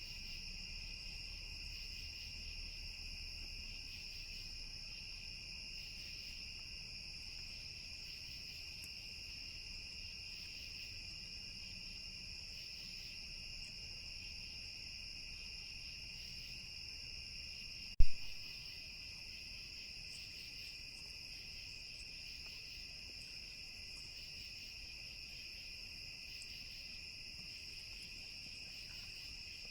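Steady chorus of crickets and other insects, a continuous high trilling in two pitch layers with a faint regular pulsing between them. A single sharp click about eighteen seconds in, much louder than the chorus.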